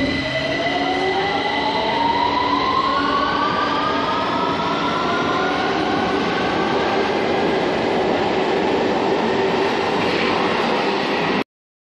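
London Underground train pulling out of a station platform, its traction motors whining in several tones that climb steadily in pitch as it accelerates, over the rumble of the wheels on the track. The sound cuts off abruptly near the end.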